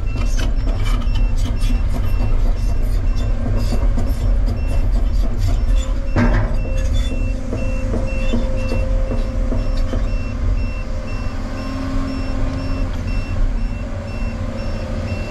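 Cat 335 excavator's diesel engine running under load, heard from inside the cab as the machine tracks, with its travel alarm beeping at a steady, even pace. A single clunk about six seconds in.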